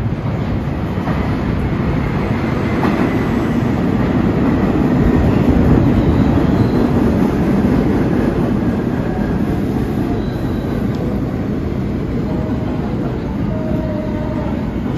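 New York City Subway Q train pulling into the underground station. A steady rumble of wheels on rails builds to its loudest about five to six seconds in as the cars pass, then eases as the train slows, with a few faint squeals near the end.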